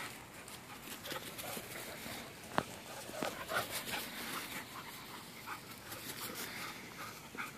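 Two dogs chasing each other on grass: short scattered sounds of their play throughout, with one sharp click about two and a half seconds in.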